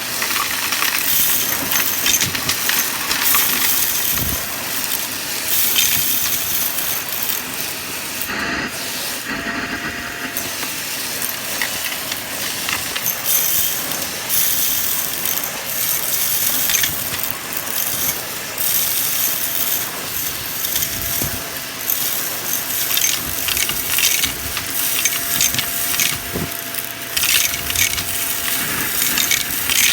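Vacuum cleaner running and sucking up crunchy debris that crackles and rattles through it, over a faint steady motor whine. The crackle thins briefly about nine seconds in, then picks up again.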